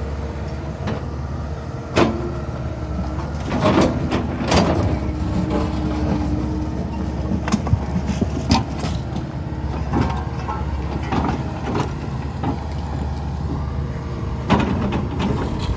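Kobelco SK210LC-10 excavator's Hino diesel engine running steadily while the bucket works chunks of concrete, with several sharp knocks and scrapes of steel on concrete.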